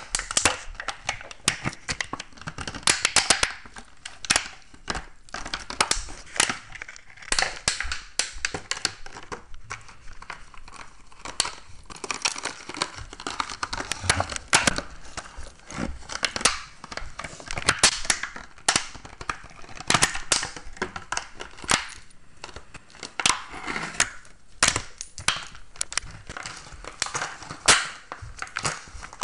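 Plastic water bottle crinkling and crackling as a dog plays with it, in dense, irregular sharp crackles throughout.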